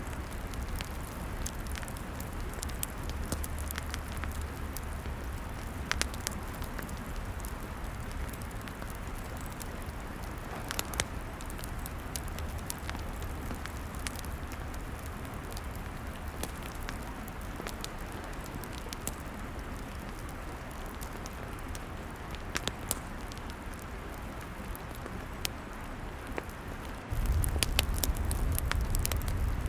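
Log fire crackling, with sharp pops and snaps scattered over a steady hiss. Near the end the sound suddenly grows louder and deeper, with a low rumble.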